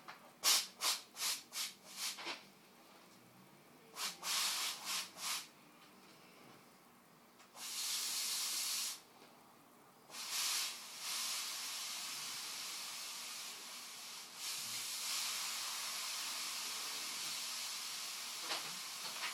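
Handheld steam cleaner venting steam: a quick run of about six short hisses, three or four more a few seconds later, then one steady hiss of a second and a half and a long, nearly unbroken hiss through the second half.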